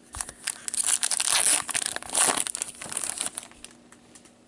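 Foil hockey card pack being torn open and its wrapper crinkled: a dense crackling that fades out about three and a half seconds in.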